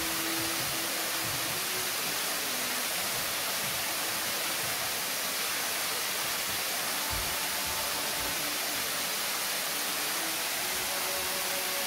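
Waterfall plunging down a rock face into a pool: a steady, unbroken rush of falling water.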